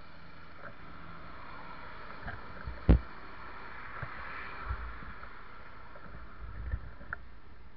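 Steady noise of road traffic passing close by, with one sharp knock about three seconds in and a few softer knocks later.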